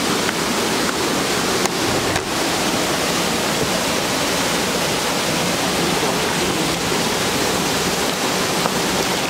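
Rushing water of a river waterfall: a loud, steady, even roar with no let-up.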